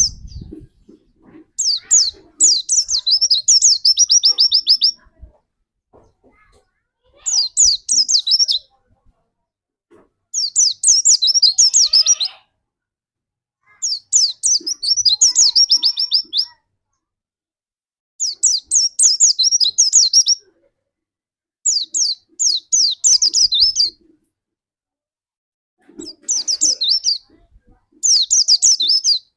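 White-eye (pleci) song: repeated phrases of rapid, high chirping trills, each lasting one to three seconds, with short pauses between them.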